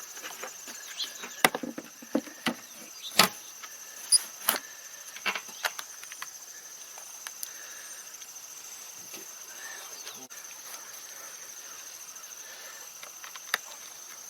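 Scattered light clicks and knocks of metal terminal bolts and cable ends being handled while a motorcycle battery's terminals are connected, the loudest about one and a half and three seconds in. Behind them runs a steady high chirring of crickets.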